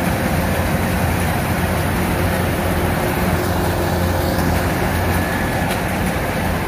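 Kubota DC-105X rice combine harvester running steadily under load while it cuts and threshes ripe rice: a constant diesel engine drone with the machinery working.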